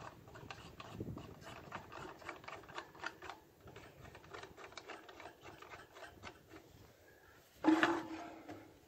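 Hands fitting plastic holders around an aluminium dish feed in its mount: a run of small clicks, taps and rubbing, with one louder scrape about three-quarters of the way through.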